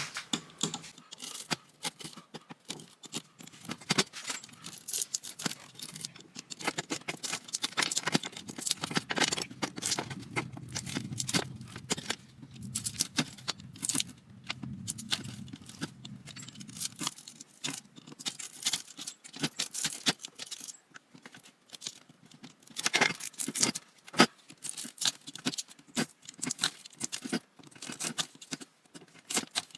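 Pliers working copper wire windings out of a ceiling fan motor: irregular metallic clicks, snips and scraping of wire being pulled and torn loose. A low hum runs underneath for several seconds in the middle.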